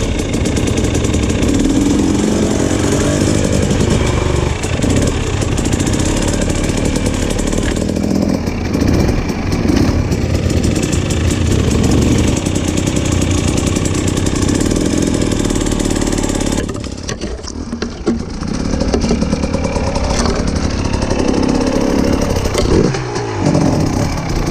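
Off-road vehicle engine running under varying throttle while driving a trail. It eases off briefly about two-thirds of the way through, then picks up again.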